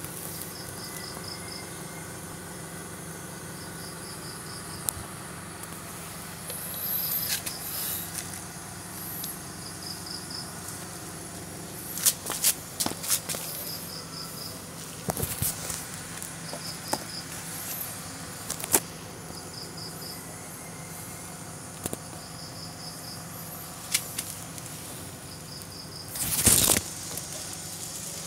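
Cricket chirping in short pulsed trills, each of about five quick pulses, repeating every couple of seconds over a steady low hum. Scattered sharp clicks come in the second half, and there is a loud rustling burst near the end.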